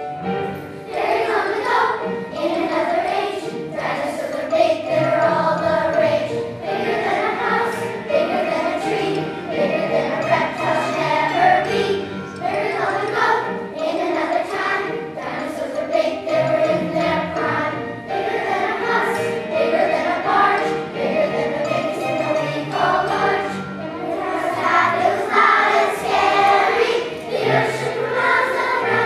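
A children's choir singing a song together.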